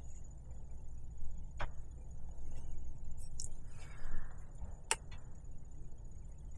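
Rivnut setter being cranked tight by hand with wrenches: quiet working with two sharp metallic clicks, one about a second and a half in and one near five seconds, over a low steady hum.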